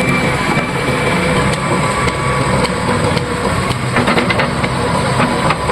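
Diesel engine of heavy earthmoving machinery running steadily, with a few short knocks partway through.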